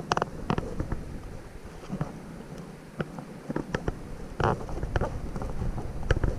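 Kayak paddling: irregular sharp knocks and clicks, with short splashy bursts. A low wind rumble on the microphone comes in about halfway through.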